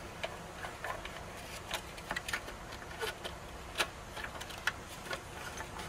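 Plastic headlight parts being handled: about a dozen light, sharp clicks and taps at irregular intervals.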